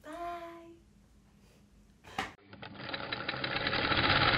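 A sewing machine running steadily, starting about two and a half seconds in and growing louder, the sound for the outro animation's stitched logo. A brief voice sounds at the very start, and a click comes just before the machine.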